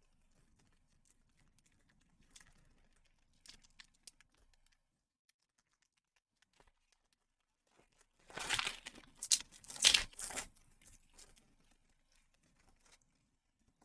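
Foil booster pack wrapper of Pokémon cards being torn open and crinkled: a few faint handling clicks, then a cluster of loud, sharp rips about eight seconds in.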